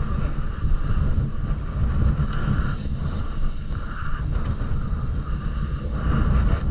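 Wind buffeting the camera's microphone: a steady, rough rumble with a hiss that rises and falls.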